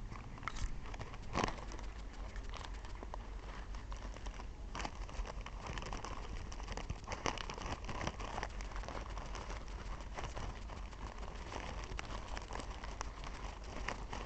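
Paper packaging and printed material crinkling and rustling as it is handled, with scattered small clicks and a few louder taps.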